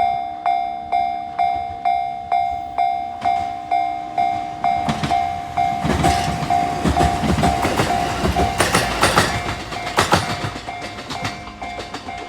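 Japanese level-crossing alarm bell ringing at about two strikes a second, while a train passes over the crossing from about five seconds in, its wheels clicking over the rail joints. The train is loudest around nine to ten seconds in and fades near the end as the bell carries on.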